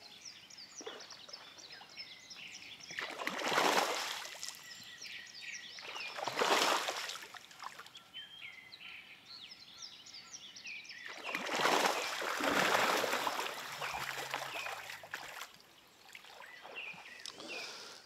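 Fish splashing and thrashing at the surface of shallow water, in three bursts with the last the longest: spawning fish, which the angler takes for crucian carp. Small birds chirp throughout.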